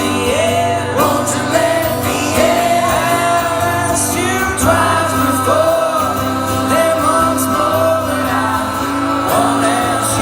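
Live band music with singing: long sung notes, each held about a second with a waver at the end, over steady sustained low notes.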